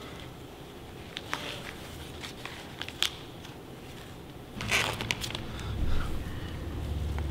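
Paper sandwich wrapper crinkling in scattered sharp clicks as it is unwrapped, with a louder rustle just under five seconds in, then a bite into the sandwich. A low steady drone comes in for the last couple of seconds.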